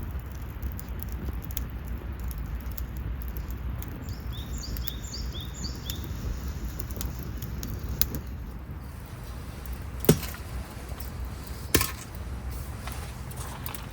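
A bird chirping four or five times in quick succession, over a steady low background rumble. A few sharp knocks or clicks follow later, one in the middle louder than the rest.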